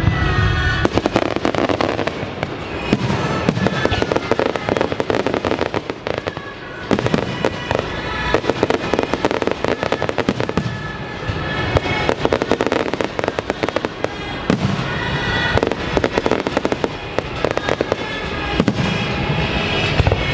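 Fireworks display in full barrage: dense waves of rapid crackling and shell bursts, with a falling whistle near the start. Music from the show's soundtrack plays throughout.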